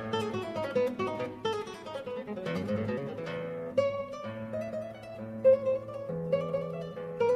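Background music: an acoustic guitar playing a run of plucked notes over sustained low bass notes.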